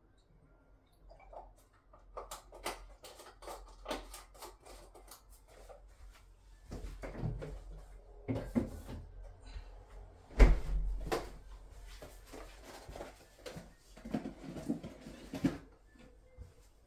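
Kitchen clatter: a quick run of light clicks and knocks as things are handled at the counter, then heavier knocks as a refrigerator is opened and closed, with one loud, deep thump about ten seconds in.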